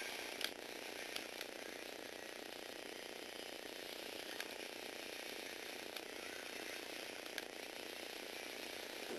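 Small electric gear motor and plastic Lego Technic gears of a four-wheeled robot whirring steadily as it drives, with a few sharp clicks, the loudest about half a second in.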